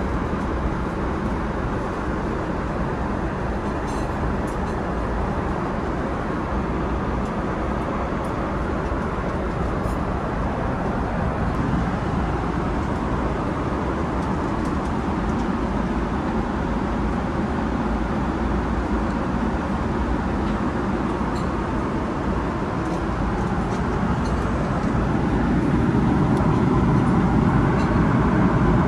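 Steady rushing cabin noise inside a Boeing 777-300ER, getting a little louder near the end.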